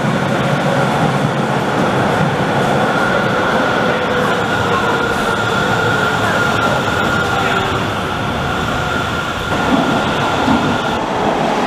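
Frankfurt U-Bahn U5 light-rail train running along an underground platform: a loud, steady rumble of wheels on rail with a high, steady whine over it. The sound changes about nine and a half seconds in.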